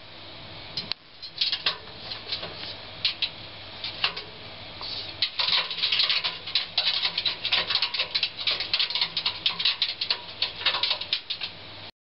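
A prairie dog's claws clattering on the perforated metal drum of a front-loading washing machine as it runs inside, turning the drum like a wheel. A rapid patter of clicks, scattered at first and becoming dense and continuous a little before halfway.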